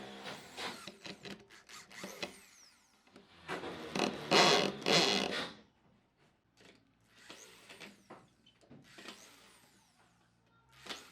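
Tools working wood in a run of separate bursts of scraping, whirring noise, the longest and loudest about four seconds in, with shorter, quieter ones after.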